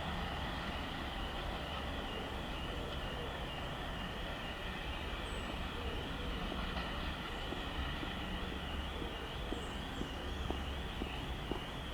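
Car alarm sounding: a steady high warbling tone that rises and falls a few times a second, set off by the passing Class 37 diesel locomotive. A low rumble runs underneath, with a few faint clicks near the end.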